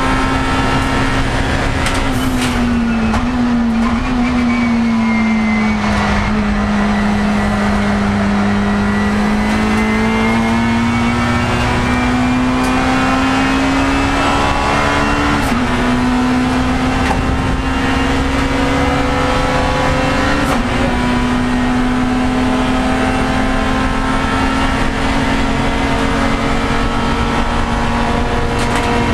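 Race car engine heard from inside the cockpit, running hard on track. Its note falls about two to three seconds in as the car slows, then climbs steadily, with two sudden small drops at about 15 and 20 seconds in that sound like upshifts, and holds steady near the end.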